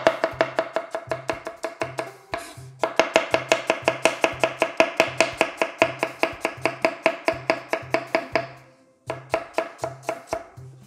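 Chef's knife slicing leek and then potato finely on a wooden cutting board: a fast, even run of knife strikes on the board, about five a second, broken by two brief pauses. Background music with a steady low beat runs underneath.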